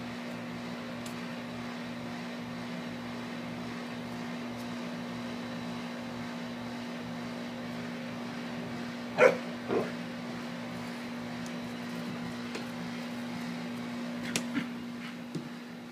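A dog at play gives two short barks about nine seconds in, and a few fainter yips come near the end, over a steady low hum.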